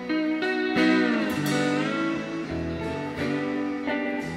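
Instrumental guitar music: plucked notes with some that bend and slide in pitch, about a second in.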